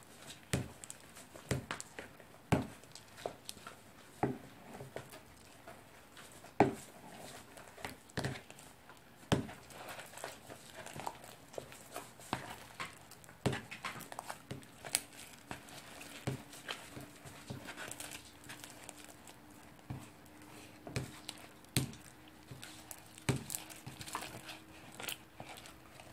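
Hands kneading sticky glue-and-contact-solution slime in a bowl: irregular wet squelches and small knocks against the bowl, about one or two a second.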